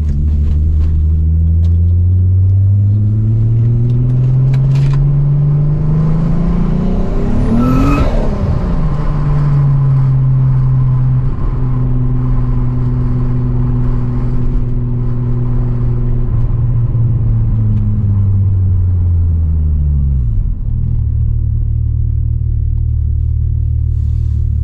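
Turbocharged VW Corrado VR6 engine running while the car is driven, its pitch climbing steadily over the first eight seconds as it accelerates, then holding steady and dropping about twenty seconds in. There is a brief louder sweep about eight seconds in.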